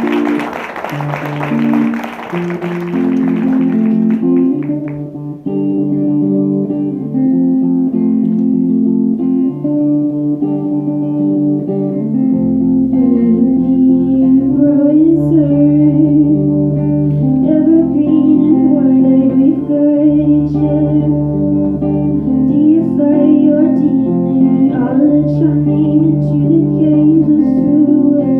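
Live acoustic music. Clapping dies away over the first few seconds as guitar chords begin, a bass comes in about halfway, and a voice sings over the guitar.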